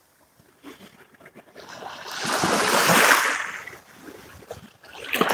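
A wave washing in over the shallows at the water's edge: a rush of surf that swells about halfway through and drains away, with a shorter wash near the end.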